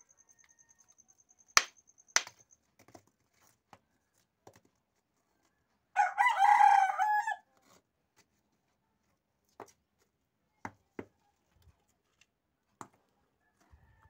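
A rooster crows once, about six seconds in, for about a second and a half. Around it, rough stones knock against each other as they are packed by hand into a foundation trench: two sharp knocks near the start, then a few softer clicks.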